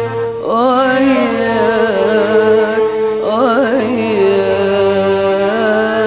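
Classic Egyptian Arabic song music with orchestral backing, in a passage without sung words. Held notes sound under a melody line that slides and wavers, once about half a second in and again past the middle.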